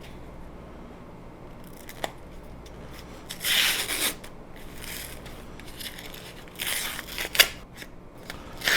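Plastic shrink wrap being torn and pulled off a CD case, heard as a few short scratchy rustling bursts with a sharp click about seven seconds in.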